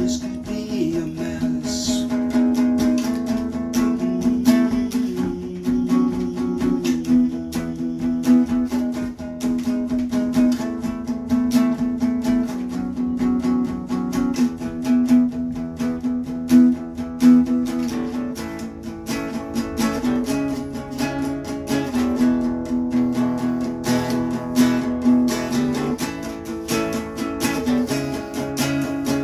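Acoustic guitar music, plucked and strummed, with a steady run of notes.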